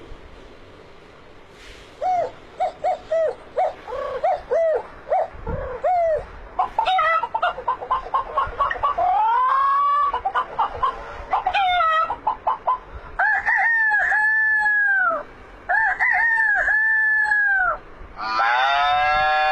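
Chicken clucking in quick short calls, building to longer rising-and-falling crowing calls, with a loud, full crow starting near the end.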